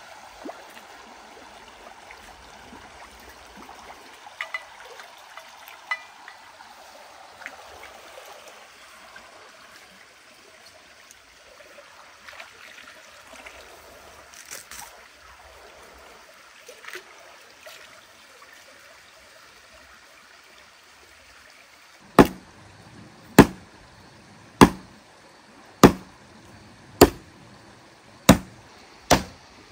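Steady rush of a creek, with a few faint clicks. About 22 seconds in, a run of loud, sharp strikes begins, roughly one a second and coming slightly faster toward the end.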